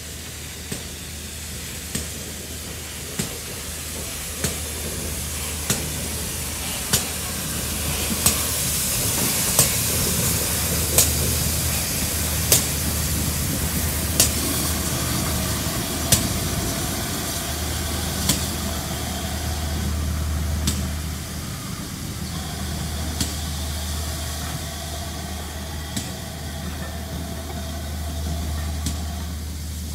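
Steam train passing slowly, hauled by GWR 2800-class 2-8-0 No. 2857: a steady steam hiss over a low hum, with sharp clicks of the wheels over the rail joints. The clicks come about every second and a half, then spread further apart as the train slows.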